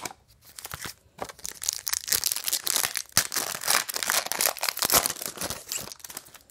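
Wrapper of a 1999-00 Flair Showcase basketball card pack being torn open and crinkled by hand. There is a dense run of crackling that starts about a second in and stops just before the end.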